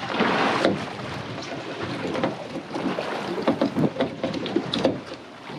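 Wind and water noise on a small boat at sea, with a louder gust in the first half-second and scattered light knocks and clicks throughout, while a heavy overhead fishing reel is cranked in against a hooked fish.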